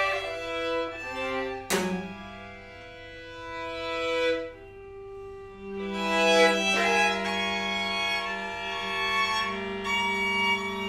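String quartet of two violins, viola and cello playing held bowed notes. A sharp accented stroke comes about two seconds in, then a quieter stretch, then the music grows louder from about six seconds in over a held low note.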